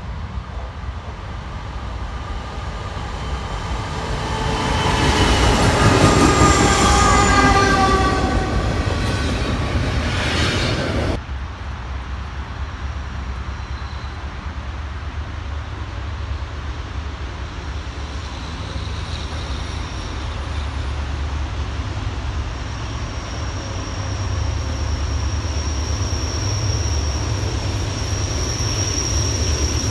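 Diesel locomotive's horn sounding as the train approaches and passes: several tones at once, sliding slowly down in pitch, loudest about six seconds in and cutting off suddenly near eleven seconds. After that comes the steady low rumble of another approaching diesel train, with a thin high ringing tone that grows louder near the end.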